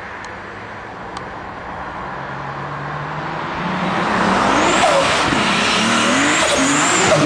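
Turbocharged BMW E30 with an E34 M5 straight-six engine approaching at speed and getting louder, its engine note rising and falling as it revs hard from about halfway in. A thin high whistle sits above the engine over the last few seconds.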